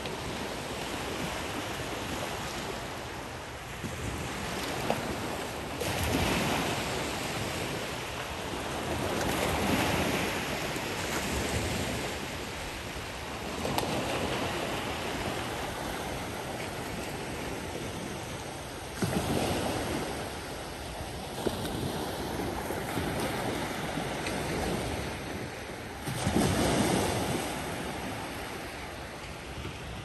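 Small sea waves breaking and washing up a sandy beach. The surf swells and fades every few seconds, with a few sharper, louder surges.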